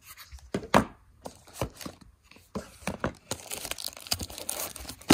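Wrapped cardboard gift packages handled in a cardboard box: a series of knocks and taps, the loudest just under a second in. From about three seconds in they give way to steady rustling and crinkling of wrapping paper.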